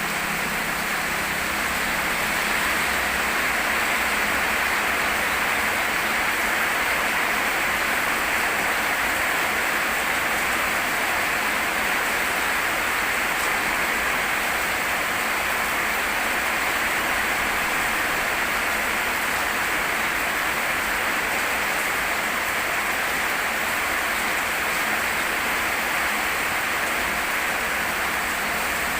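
Rain falling steadily, a dense, even hiss that holds without a break.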